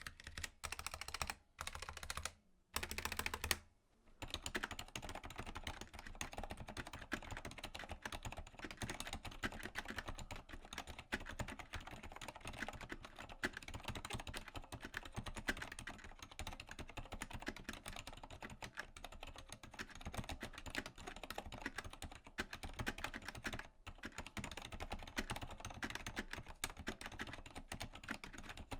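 Continuous fast typing on a mechanical keyboard with linear key switches: a dense stream of key clacks, broken by a few short pauses in the first four seconds.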